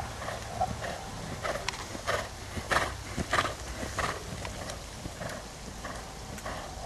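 Hoofbeats of a ridden horse on a sand arena: a steady run of soft knocking footfalls, loudest about halfway through as the horse passes close by.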